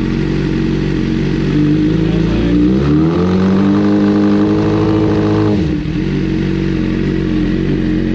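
2014 Suzuki GSX-R750's inline-four engine idling, then revved once: the pitch rises over about a second and a half, is held for about two and a half seconds, and drops sharply back to a steady idle. It is running with the air filter removed.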